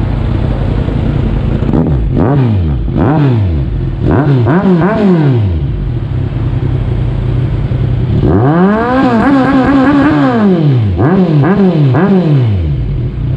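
Kawasaki Z1000's inline-four engine running loud through a Yoshimura muffler: idling, revved in quick throttle blips, then one longer rev held high for about two seconds past the middle, followed by three more quick blips.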